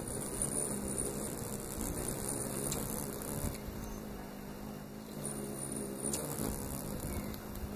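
Hummingbirds' wings humming as several hover, a steady low hum with a faint high buzz over it, and twice a short, sharp high chip.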